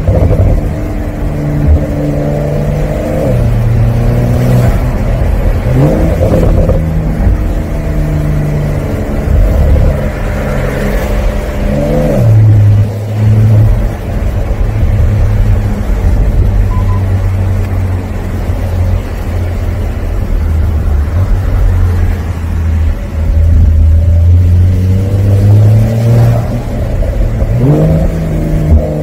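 Porsche 911 (992) Carrera 4S Cabriolet's twin-turbo flat-six heard from the open cockpit under way, with wind rush. The engine note shifts in steps several times, rising and falling, and its revs climb near the end before dropping again.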